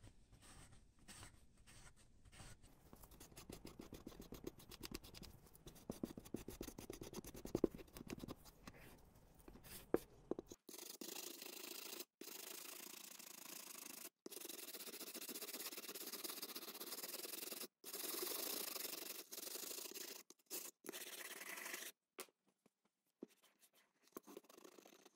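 A rag rubbing over the ridged plastic body of a toy trailer, stripping old layers of paint. About ten seconds in it gives way to a stiff-bristled brush scrubbing back and forth, a denser hiss broken by a few abrupt cuts.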